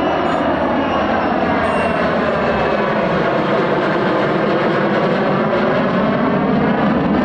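Lockheed U-2's single turbofan jet engine running loud and steady as the aircraft flies past, with a slow phasing sweep through the noise that dips lowest near the end.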